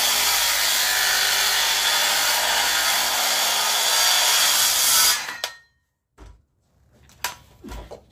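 Handheld circular saw cutting through the end of a wooden rafter, a loud steady blade-in-wood noise for about five seconds. The saw is then released and stops abruptly, followed by a few light knocks.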